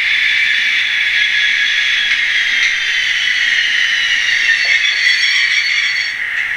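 Sound decoder of a Hobbytrain N-scale BR 110 electric locomotive model playing its running sound through the model's small speaker. It gives a steady hissing rush, and a high whine falls in pitch through the middle.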